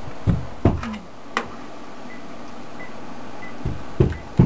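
Scattered sharp clicks and knocks over a steady background noise, as a USB flash drive is fumbled against and pushed into a computer's front USB port. The knocks come three times in the first second and a half, then three more close together near the end.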